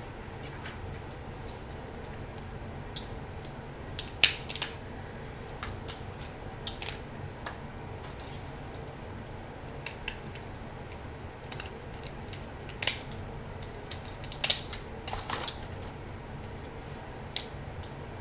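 Snow crab legs being cracked and cut open with crab shears and by hand, close to the microphone: irregular sharp cracks and snaps of shell, loudest about four seconds in and again about fourteen seconds in, over a steady low hum.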